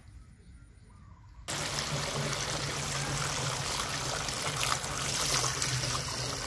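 Water running into a metal sprayer tank onto blue fungicide powder to mix the spray, starting abruptly about a second and a half in and then running steadily, with a low hum underneath.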